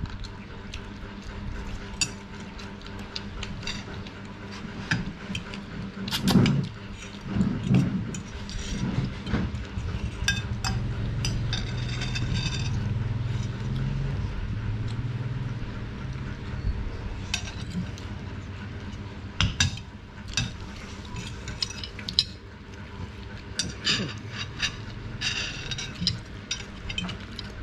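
Metal spoon and fork clinking now and then against a ceramic rice bowl and plates at a meal, over a low steady hum.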